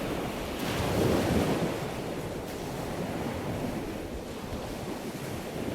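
Ocean surf and wind-chop waves washing, with wind buffeting the microphone; the rush swells about a second in.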